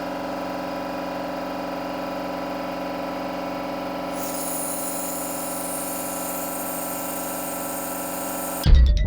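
Electric vacuum pump running steadily with an even, pitched hum as it pumps down the chamber. A hiss joins about four seconds in, and a sudden loud hit cuts it off near the end.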